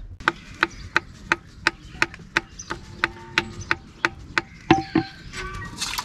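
A wooden churning stick working in a clay pot of milk, knocking rhythmically at about three wooden clicks a second. A louder knock comes near five seconds in.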